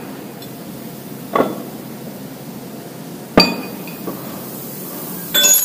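Steel wrenches clinking on metal: a soft knock about a second and a half in, a sharp ringing clank about three and a half seconds in, and a short run of ringing clinks near the end.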